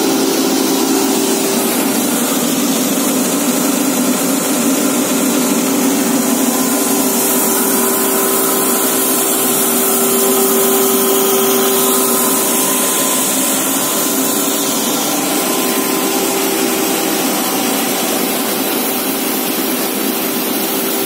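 Steady noise of processing machinery running, with a constant hum, from a vibrating screen driven by electric vibration motors and other plant machines. In the middle a brighter hiss rises, from granules pouring down a chute into a bin.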